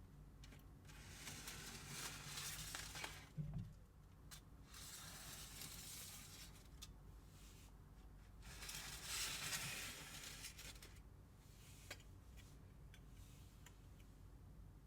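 Faint handling of a DIY sweets kit's plastic packets and tray: three spells of rustling or scraping, with scattered light clicks and a short knock about three and a half seconds in.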